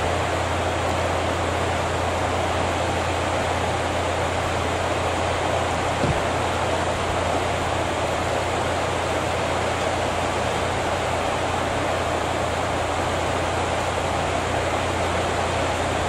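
Steady rushing background noise with a constant low hum underneath, and one faint click about six seconds in.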